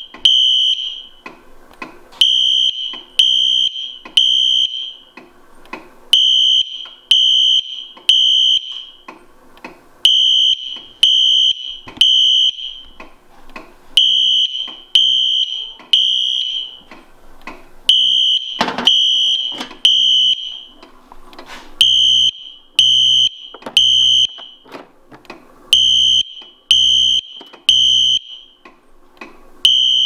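Wheelock Exceeder horn strobe sounding a fire alarm evacuation signal on its code-3 temporal tone: three high beeps, a pause, then three more, repeating about every four seconds. A single sharp knock sounds a little past halfway.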